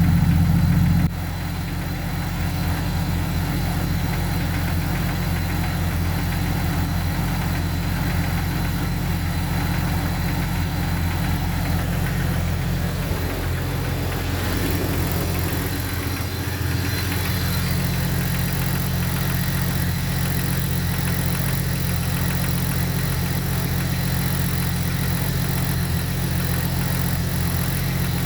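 Jeep XJ 4.0L inline-six idling with a knock that the owner takes for piston slap, likely in cylinder 6 and possibly 5 as well. It is louder for about the first second, then settles to a steady idle that wavers briefly about halfway through.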